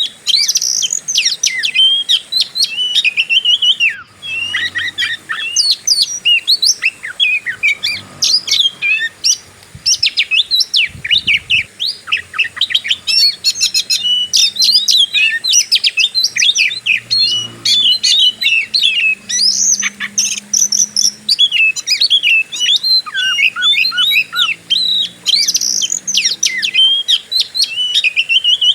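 Oriental magpie-robin (kacer) singing without pause in the aggressive 'fighting' style: a dense, rapid stream of varied whistles, chirps and sharp rising and falling notes.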